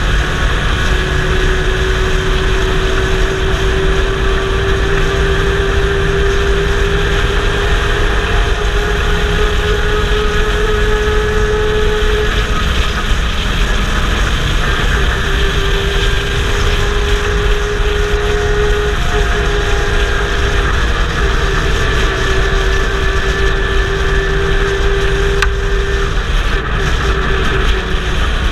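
Pro Truck race truck's engine at racing speed, heard from on board: a loud, steady drone over a constant rush of noise. Its pitch climbs slowly and then drops back, about three times, as the truck laps the short oval.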